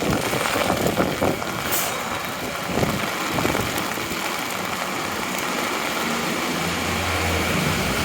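Heavy rain pouring down in gusty wind on a city street, with traffic noise; a vehicle's steady low engine hum comes in about three-quarters of the way through.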